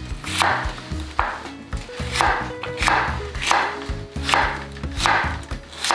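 Chef's knife slicing a quarter onion on a wooden cutting board: about eight slow, even cuts, roughly one every 0.7 s, each ending in a tap of the blade on the board.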